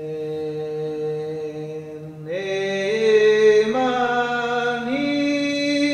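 Slow chanting: long held notes stepping upward three times over a steady low drone.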